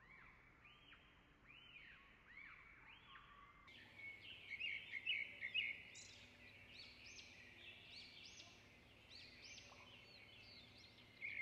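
Faint, repeated high chirping tones, about two a second, that turn louder and busier about four seconds in over a steady hiss.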